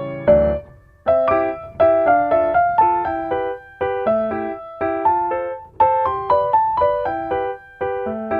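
Background piano music: short phrases of struck notes, each dying away before the next.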